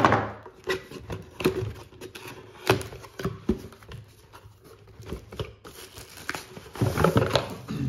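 Handling noise from a cardboard box being opened by hand: a series of knocks and clicks as it is handled and its flaps are pulled open, then a plastic bag crinkling as it is tugged out near the end.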